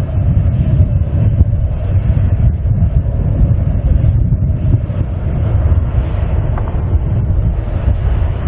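Boeing 737-800 jet engines running at taxi idle: a steady rumble with a faint high whine, heavily buffeted by wind on the microphone.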